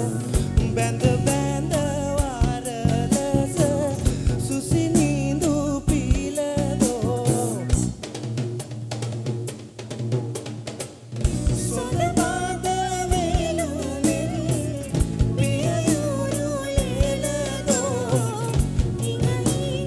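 Live song: a man singing over a hand-played double-headed barrel drum beating fast, dense rhythms. About 8 s in, the deep bass drops out for a few seconds while the quick drum strokes carry on.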